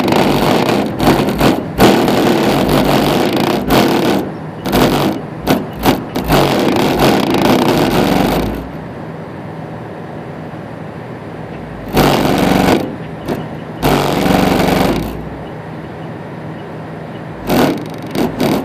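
Two 15-inch Q-Power Deluxe subwoofers playing loud bass in uneven pulses, rough and distorted. The level drops for a few seconds in the middle before the hits return.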